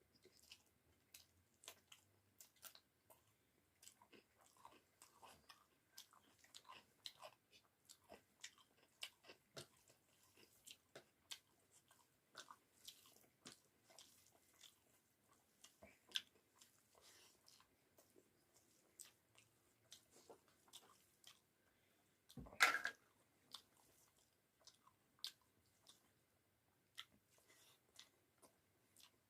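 Close-up chewing and mouth sounds of a person eating rice and curry: soft, irregular smacks and small clicks. About three-quarters of the way through comes one louder, short crunch.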